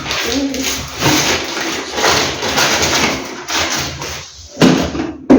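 Plastic packaging crinkling and rustling in irregular surges as packs of tissue are handled.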